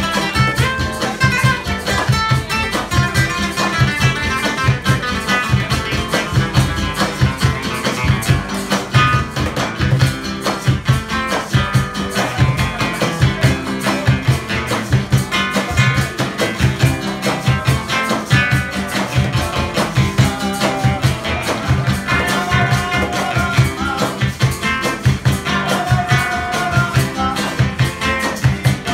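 Live acoustic band playing: two acoustic guitars strummed and picked over a cajón keeping a steady beat.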